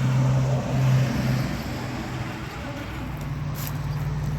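Electric RC rock crawler's motor and gears whining as it drives, the whine easing off about a second and a half in and picking up again about three seconds in.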